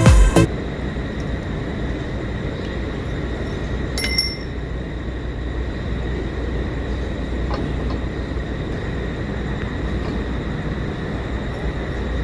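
Excavator engine running steadily with a low rumble. A single short metallic clink about four seconds in.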